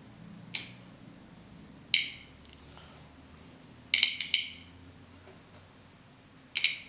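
Small steel ball bearings, about 3.16 mm across, clicking against each other and the metal of a linear guide carriage as they are handled and loaded back in: single sharp clicks about half a second and two seconds in, a quick run of clicks around four seconds, and another couple near the end.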